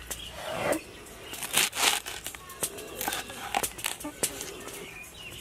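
Large kitchen knife chopping a bunch of fresh leafy herbs on a cutting board: irregular sharp chops with the rustle of the stems and leaves being handled.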